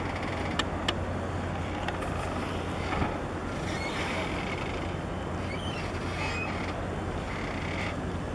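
A steady low engine drone under an even wash of outdoor noise, with two light clicks in the first second and a few faint short high chirps later.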